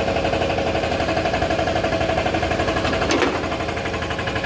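Toilet-paper rewinding machine running steadily with a fast, even mechanical rhythm, with one brief sharp noise about three seconds in.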